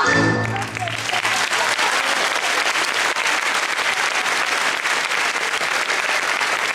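Audience applauding, a dense steady clapping that takes over as the last notes of the music die away in the first second.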